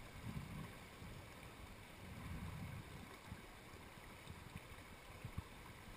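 Mountain torrent rushing faintly, a steady wash of water, with a few soft low bumps of handling on the microphone.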